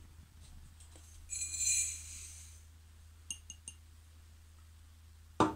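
Granulated sugar poured from a drinking glass into an empty glass mixing bowl: a short sandy hiss with a light ring of the glass, lasting about a second. About three seconds in come three quick, light glass-on-glass clinks.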